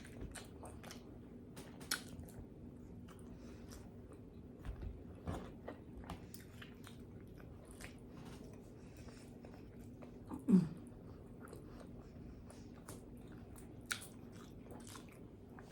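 Close-up eating sounds of someone chewing pizza: wet smacking and sharp mouth clicks throughout, with one short low hum falling in pitch about ten seconds in.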